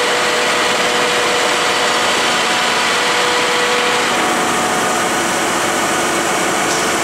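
1969 Lucas 441B-72 horizontal boring mill running under power, its table traversing with a steady mechanical drive noise. One of its steady tones stops about four seconds in.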